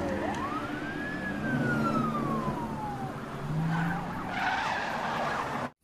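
Film soundtrack of a police car siren wailing down, then up and down again, over traffic and car engine noise. It cuts off suddenly near the end.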